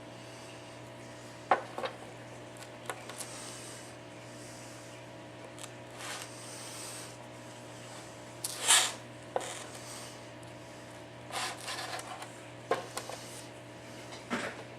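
Handling noises on a work bench: scattered light clicks and taps with a few short brushing or rubbing sounds, the loudest brush a little past the middle, over a steady low electrical hum.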